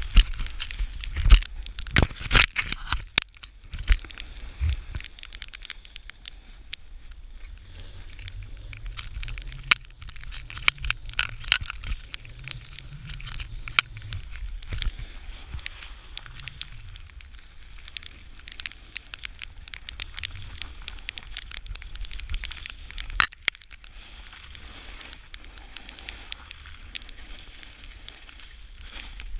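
Snowboard sliding and scraping over snow, a continuous crackling hiss broken by irregular sharp knocks, which come thickest in the first few seconds.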